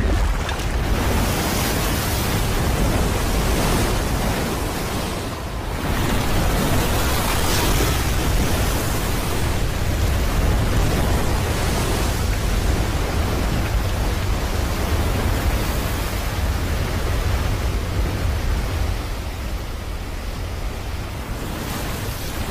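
Film sound effect of rushing floodwater: a dense, steady rush of water over a deep rumble, dipping briefly about five seconds in.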